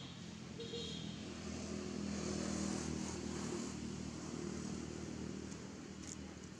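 A motor vehicle's engine passing by, its low hum growing louder two to three seconds in and then fading.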